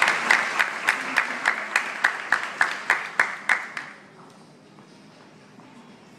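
Audience applauding, with one loud set of claps standing out in a steady beat of about three claps a second. The applause dies away about four seconds in, leaving low room noise.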